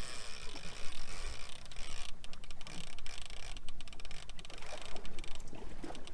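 Fishing reel's drag clicking rapidly as a big striped bass pulls line off the spool, over a steady low rumble.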